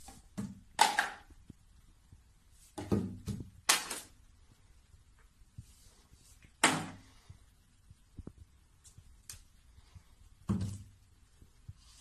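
Plastic toiletry bottles being pawed off a shelf by a cat one at a time, each landing with a thunk: about five clear thunks spread through the stretch, with small taps and clicks of bottles being nudged between them.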